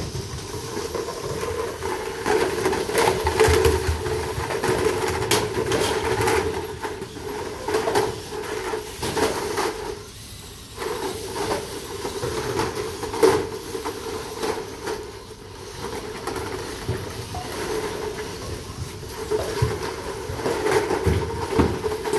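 VEX competition robots' electric drive and lift motors whining through their gearing, stopping and starting as the robots drive, intake cubes and tilt their trays up, with knocks of the hollow plastic cubes striking the robots and the field.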